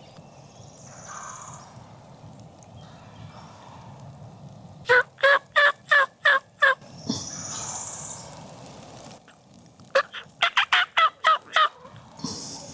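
Turkey calling: two loud series of rapid, clipped notes, the first of about seven notes and the second of about nine quicker ones, some five seconds apart.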